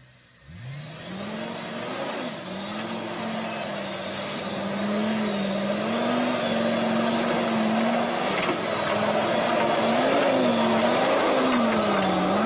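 Lifted off-road SUV on oversized mud tyres crawling through deep mud: its engine revs up sharply about half a second in and is then held at high revs, the pitch wavering up and down as it labours for grip, with tyres churning mud. It grows louder toward the end.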